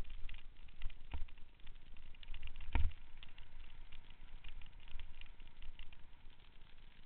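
Mountain bike rolling fast down a dirt trail, heard from a camera riding on the bike or rider: a low rumble with constant small clicks and clatter from the bumps, a knock about a second in and a louder one a little under three seconds in.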